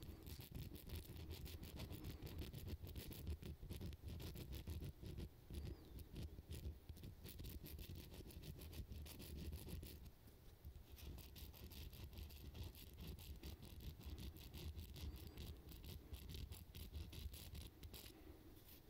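Hand-held hook sharpener rasping back and forth on the metal hook of a fishing lure in quick, even strokes, several a second, easing off briefly about halfway through before picking up again.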